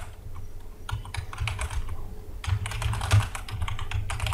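Typing on a computer keyboard: irregular runs of key clicks, with a short pause near the middle.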